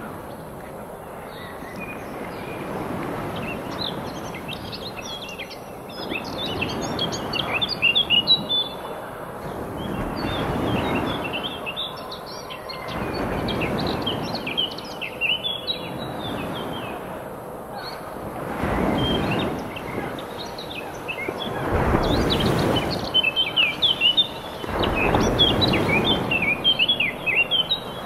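Waves washing onto a shore in slow swells every three or four seconds, with many birds chirping and twittering over them.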